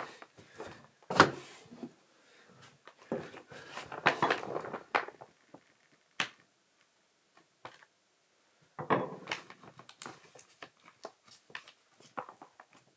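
Irregular knocks, clunks and short rustles of hands-on building work inside a small room, with quiet gaps between them. The sharpest knock comes about a second in.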